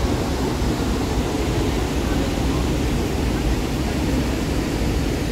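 Large waterfall's falling water: a steady, dense rushing noise, heaviest in the low range.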